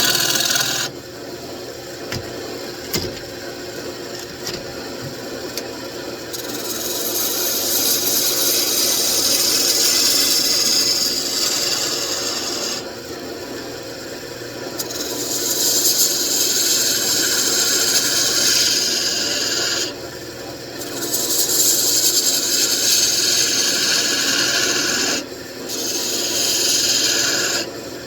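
Wood lathe running with a steady motor hum while a hand-held turning tool cuts into a spinning mahogany table leg, shaving wood in four long passes with short pauses between them.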